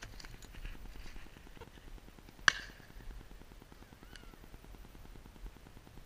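A single shotgun shot about two and a half seconds in, sharp, with a short trailing echo.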